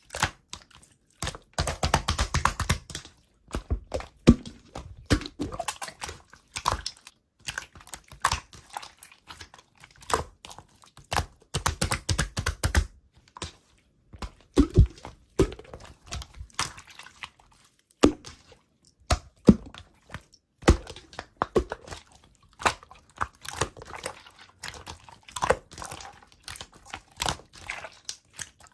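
Slime being squeezed and stretched by hand, making irregular crackling clicks and small pops that come in clusters with short pauses between them.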